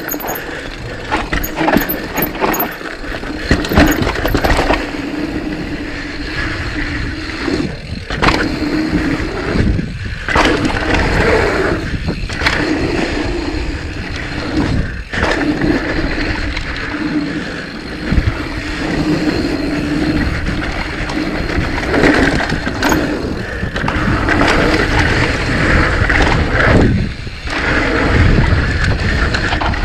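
Mountain bike rolling down a dirt trail: steady tyre and wind noise with the bike rattling over the ground, dropping off briefly a few times.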